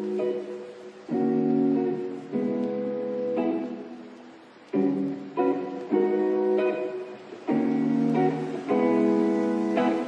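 Guitar music: chords struck roughly every second, each ringing out and fading before the next.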